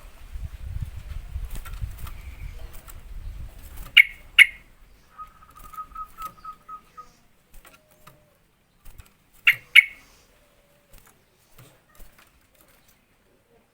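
Yellow-vented bulbul (trucukan) calling: two loud bubbly notes about 4 s in and two more about 9.5 s in, with a quick run of short repeated notes between them. A low rumbling noise runs under the first few seconds.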